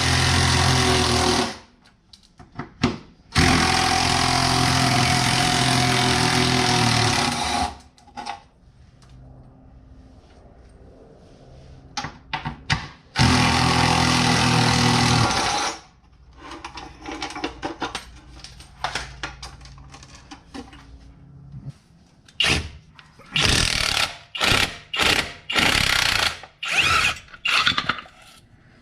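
Impact wrench hammering on a stuck bolt in three long runs of several seconds each, then a string of short bursts near the end, with quieter clatter between.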